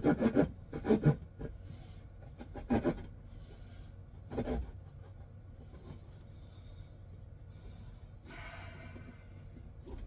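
Small pocket saw blade sawing back and forth into a wooden stick to cut a notch: quick rasping strokes in the first second, a few more a couple of seconds later, then only faint scraping.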